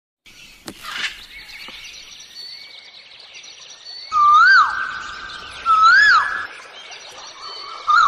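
Birds chirping and twittering. About four seconds in, two loud electronic siren-like whoops come a second and a half apart, each rising then falling sharply, over a steady tone. A wavering tone starts near the end.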